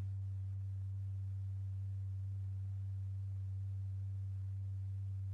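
A steady, unbroken low pure tone of about 100 Hz with a faint overtone an octave up: the sine-wave tone that sets the powder-strewn diaphragm vibrating.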